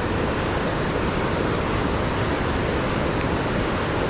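Steady rushing of high river water pouring through a lock, an even noise with no breaks.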